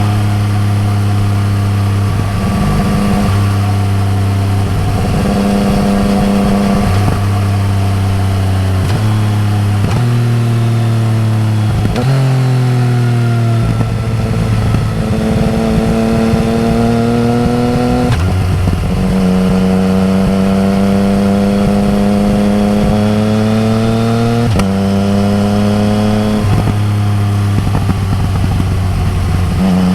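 Yamaha MT-09 Tracer's three-cylinder engine through an Akrapovic exhaust, running under way with its pitch climbing and dropping several times as the rider works the throttle and gears.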